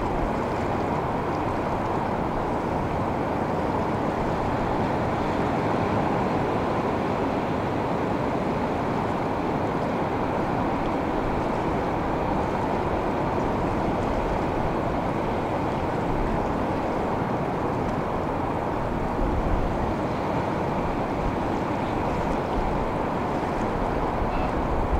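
Steady wash of ocean surf, with wind rumbling on the microphone now and then.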